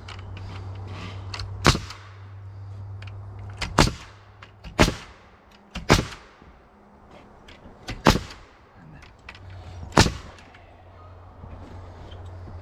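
Framing nail gun firing single shots into the framing lumber, about six sharp cracks spaced one to two seconds apart, over a steady low machine hum that drops out midway and returns near the end.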